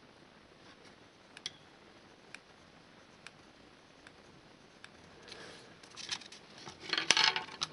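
Pencil pressed hard and rubbed over a milk-carton disc to emboss the outline of the exhaust port and screw holes: faint scattered ticks about once a second, then louder scratching and handling near the end.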